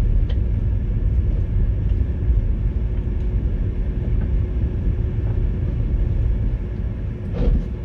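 Steady low rumble inside a Skoda Citigo driving along an unpaved gravel-and-dirt track, the tyres crunching over the loose surface under the engine's drone.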